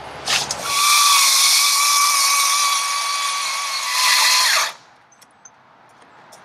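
Electric chainsaw running flat out as it cuts into a fallen log, a steady high whine that starts about a second in and cuts off suddenly after about four seconds.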